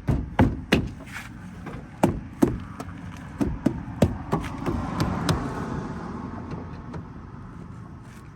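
Rear door trim panel being tapped against the door to seat its retaining clips: a string of irregular knocks through the first five seconds or so, then a softer rustle as the knocking stops.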